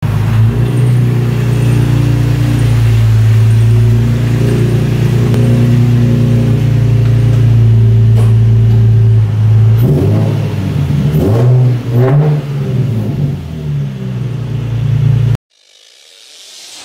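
Nissan 350Z's 3.5-litre V6 engine running at a steady pitch, then revved up and down several times about ten seconds in; the sound cuts off suddenly near the end.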